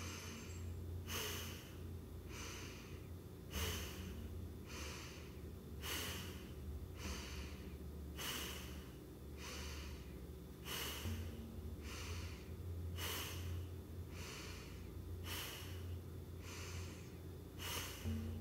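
Loud, rhythmic yoga breathing: quick inhales and exhales alternating a little over a second apart, paced by the Cat-Cow spinal movement, over a steady low hum.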